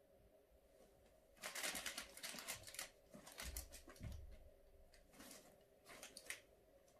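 Cat moving through a fabric play tunnel: bursts of crinkly rustling from the tunnel material, loudest from about one and a half to three seconds in. A few soft thumps come around four seconds in, and there are shorter rustles near the end.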